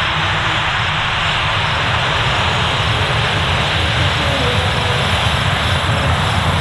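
Boeing KC-135R Stratotanker's four CFM F108 turbofans running at low taxi power as the tanker rolls past: a steady jet noise with a low rumble and a broad hiss.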